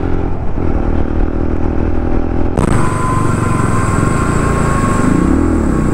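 Single-cylinder BMW G310 RR motorcycle being ridden, its engine running steadily at cruising speed. About two and a half seconds in the sound changes abruptly to slower riding, and near the end the engine note rises and falls once.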